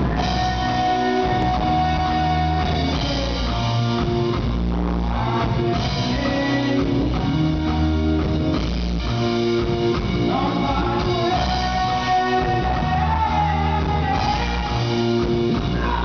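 Live rock band playing, with drums and a male singer singing into a microphone. His voice stands out more clearly over the band from about ten seconds in.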